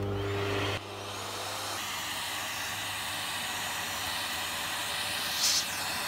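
Bosch canister vacuum cleaner running. A low hum for under a second, then a sudden change to a steady rushing hiss of suction, with a brief louder whoosh near the end.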